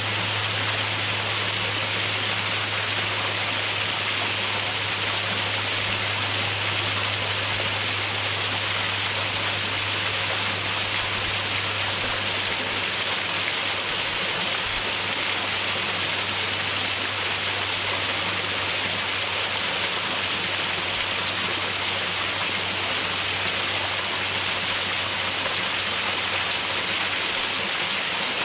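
Small waterfall cascading steadily: a constant hiss of falling water, with a faint steady low hum underneath.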